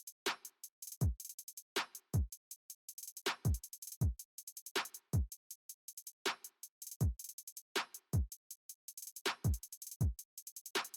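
Electronic background music: a drum-machine beat of deep kick drums that drop in pitch, over rapid hi-hat ticks.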